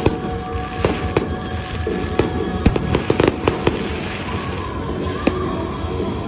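Music with held tones, overlaid by a scatter of sharp cracks that bunch together about three seconds in.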